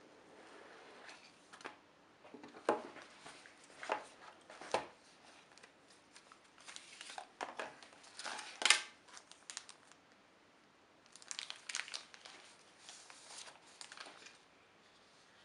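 A smartphone being unboxed by hand: the cardboard box handled and opened and the phone lifted out, with crinkling of plastic wrapping and several sharp taps and clicks, the loudest about nine seconds in.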